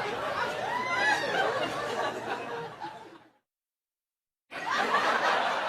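A person laughing in a sound-effect clip that cuts off abruptly about three seconds in. After a second of dead silence, another clip starts just as suddenly.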